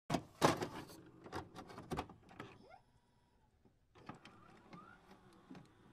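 Electronic intro sound effects for a glitchy loading-screen animation: a quick run of sharp clicks and short swishes, a brief rising sweep, then after a pause fainter ticks and another short rising sweep.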